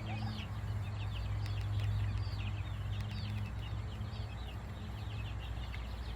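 Chickens calling: a steady run of high, short peeps with clucking. Under them runs a steady low hum.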